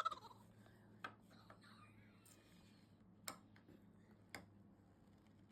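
Near silence: a faint steady low hum with three light clicks, about a second, three seconds and four seconds in.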